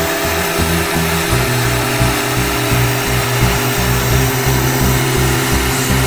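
Background music with a steady, stepping bass line, over an even hiss from a welding torch welding a steel bracket onto a radiator.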